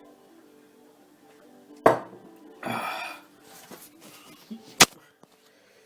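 Kitchen clatter of crockery and utensils: a sharp knock about two seconds in, a short hiss just after it, and a sharp click near the end, over faint background music.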